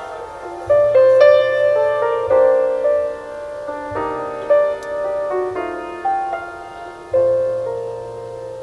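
Piano music playing through a car audio system's Focal Utopia speakers. Single notes and chords are struck every second or so and ring out as they fade, over low bass notes.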